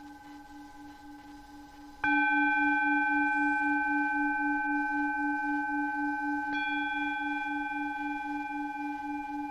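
Singing bowl ringing with a slow wavering pulse in its low tone. It is struck about two seconds in and again more lightly later on, each strike renewing the long ringing.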